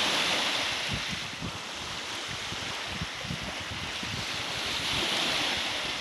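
Small lake waves breaking and washing up a sandy shore, the surf swelling at the start and again about five seconds in. Wind buffets the microphone with a low rumble throughout.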